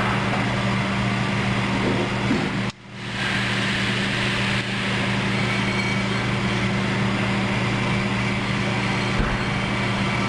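Steady mechanical hum with hiss, dropping out sharply for a moment about three seconds in and then returning.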